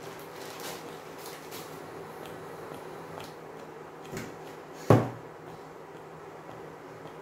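Baking paper and puff pastry rustling lightly as they are handled over a metal springform tin, with a soft thump about four seconds in and one sharp knock about a second later. A steady low hum, from the induction hob running, lies under it.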